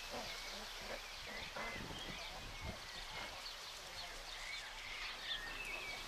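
Young puppies whimpering and squeaking, many short, high thin calls, some gliding up or down, scattered over a low outdoor background.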